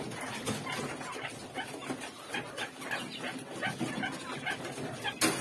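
Young quail in wire cages calling, a string of short chirps several times a second. There is a sharp knock near the end.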